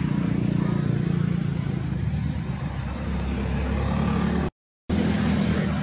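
A motor engine running steadily nearby, a low hum that cuts out for about half a second some four and a half seconds in and then carries on.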